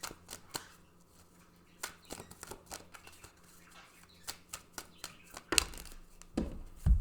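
Tarot cards being shuffled and handled: a run of scattered sharp card flicks and snaps, followed by a few louder, deeper thumps in the last second and a half as the deck and cards knock against the table.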